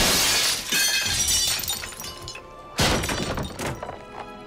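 Glass shattering in a loud, sudden crash that dies away over about a second, followed by a second crash near three seconds in, with music underneath.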